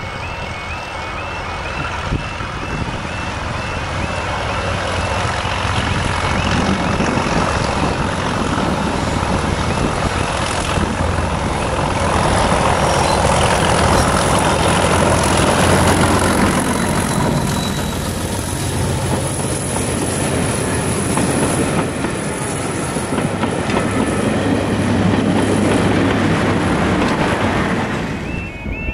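Class 31 diesel locomotive hauling passenger coaches approaches and passes close by, its engine running under power, loudest about halfway through as it draws level, then the coaches rolling past on the rails. The sound drops away suddenly near the end.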